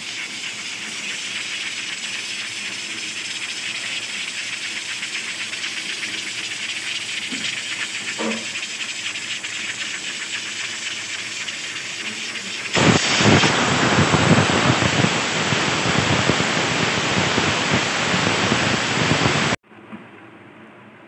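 Pressure cooker hissing steadily as steam escapes from its weighted valve. About two-thirds of the way through, the hiss suddenly gets louder and rougher, then cuts off abruptly.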